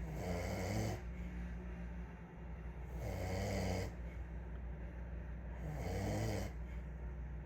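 A man snoring in his sleep: three snores, one about every three seconds.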